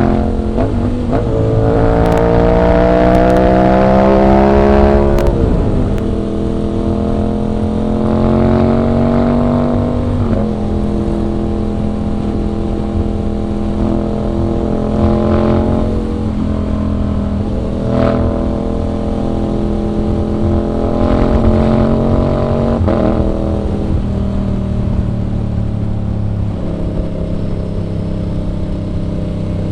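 Aprilia RS 660's parallel-twin engine under way: its pitch climbs from about a second in and falls sharply near five seconds, then holds mostly steady, with further shorter rises and drops around ten, sixteen, eighteen and twenty-three seconds.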